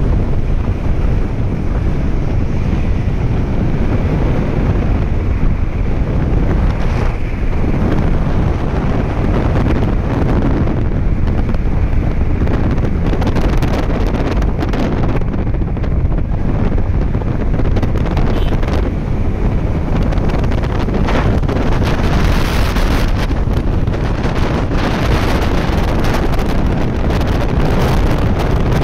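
Steady wind rushing over the microphone of a rider on a Hero Honda CBZ motorcycle at highway speed, with road and engine noise beneath it. The wind turns rougher and hissier from about two-thirds of the way through.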